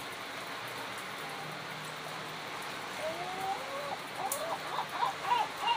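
Steady rain-like hiss. About halfway through, a bird starts calling in a quick run of short, rising-and-falling notes.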